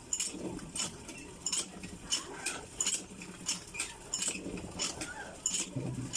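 Irregular light clinks and clatters of small hard items being handled, about two a second.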